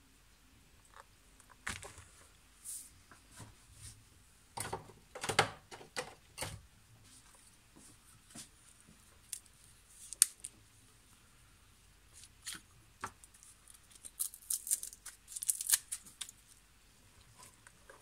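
Hands handling a washing machine's rubber drain bellows hose and a small plastic glue bottle for a drain-leak repair: scattered clicks, rubbing and rustling, with a louder run about five seconds in and crisp crackling near the end.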